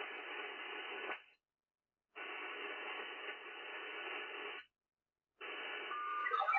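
VARA HF modem data signal over an HF transceiver sending repeated connect requests: hissy bursts of digital audio about two and a half seconds long, separated by about a second of silence. Near the end the last burst carries distinct short beeping tones as the called station comes back.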